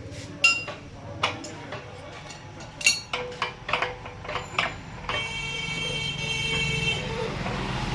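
Sharp metallic clinks and taps of tools and parts being handled during compressor repair work. About five seconds in, a steady whine from a small motor or power tool runs for about two seconds.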